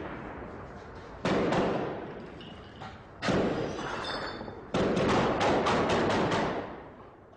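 Gunfire ringing out between buildings. There are shots about one second in and about three seconds in, then a rapid burst of about seven shots from about five seconds in, each trailing off in a long echo.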